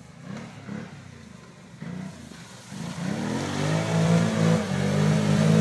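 ATV engine revving while the quad drives into a mud hole: faint and uneven at first, then climbing about three seconds in and held at high revs under load in the mud.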